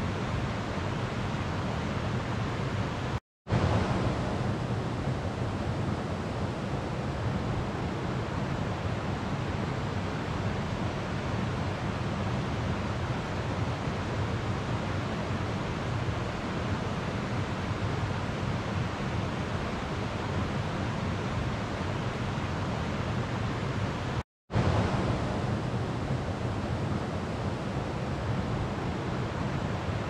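A slow river flowing: a steady, even wash of water with no distinct splashes. It cuts out to silence for a split second twice, about three seconds in and again about twenty-four seconds in.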